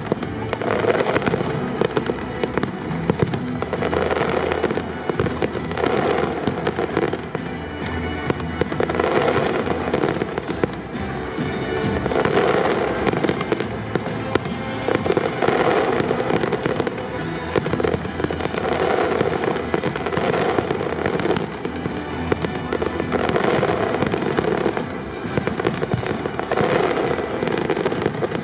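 Aerial fireworks shells bursting in a rapid, unbroken barrage of bangs and crackles.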